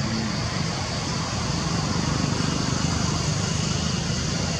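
Steady outdoor background noise with no distinct event: a continuous low rumble and an even high hiss.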